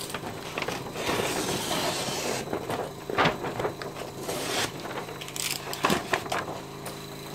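Airbrush compressor pump running with a steady hum, while rustling in the first couple of seconds and a few sharp clicks and knocks come from things being handled.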